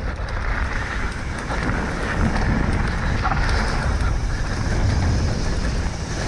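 Steady rush of wind on the microphone mixed with a Specialized Enduro mountain bike's tyres running fast over a dirt downhill trail.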